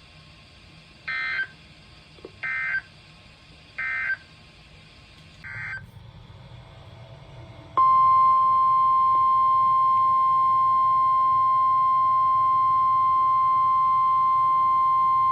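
Emergency Alert System SAME data bursts: three short warbling bursts of digital tones about a second and a half apart, the end-of-message signal of one warning, then a weaker fourth. About eight seconds in, the steady single-pitch NOAA Weather Radio 1050 Hz warning alarm tone begins and holds loud, announcing the next warning.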